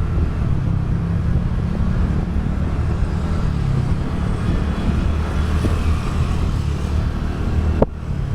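TVS Ntorq 125 scooter's single-cylinder engine running at a steady cruise under way, with road and wind noise, heard from the rider's own vlogging mic. A single sharp click near the end.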